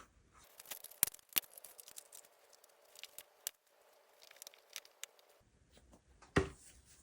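Rubber RC car tire being worked by hand onto a plastic wheel: a steady rubbing with scattered small clicks and taps, then a single knock near the end.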